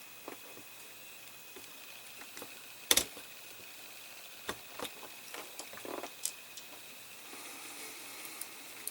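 Small clicks and taps of die-cast metal and plastic model parts and a screwdriver being handled during assembly, with one sharp click about three seconds in and a few lighter ones a couple of seconds later.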